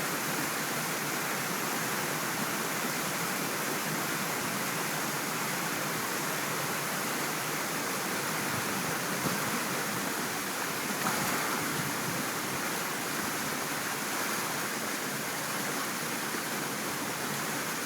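Waterfall on a mountain stream: a steady rush of falling water.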